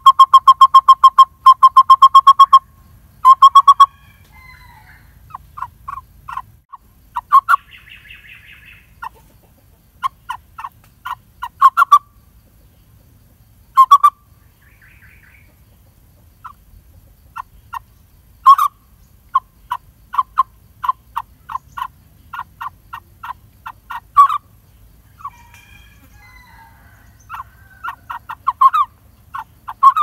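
Lineated barbet nestling calling from its tree-hole nest while it waits to be fed. A loud, fast run of sharp repeated notes opens the clip, and shorter runs and single notes follow on and off.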